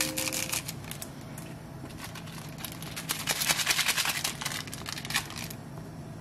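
Plastic seasoning packet crinkling as its dried flakes are shaken out over a pot of boiling ramen, with a longer spell of dense crinkling from about two and a half seconds in to near the end.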